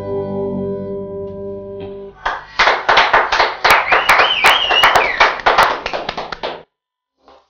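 A live band's closing held note, with harmonica, fades out. About two seconds in, applause breaks out with a whistle partway through. It cuts off suddenly shortly before the end.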